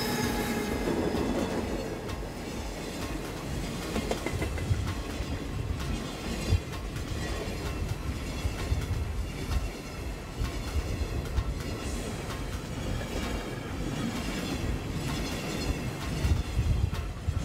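Train running past close by: a steady rumble and rattle of wheels on the rails, with irregular knocks over rail joints.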